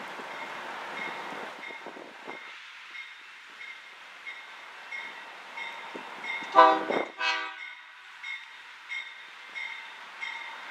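Union Pacific diesel locomotive approaching with a coal train, sounding its air horn in two short loud blasts about six and a half seconds in. Under it a bell dings about twice a second and the train rumbles.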